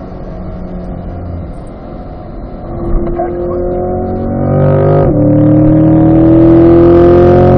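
2020 Corvette C8's V8 engine under hard acceleration: the note holds steady, then climbs, drops sharply at a quick upshift about five seconds in, and climbs again, louder.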